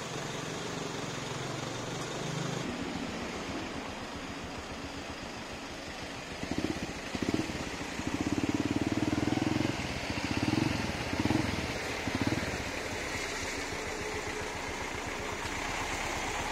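Road traffic with vehicle engines running. About halfway through, a nearby engine grows louder in several surges, then fades.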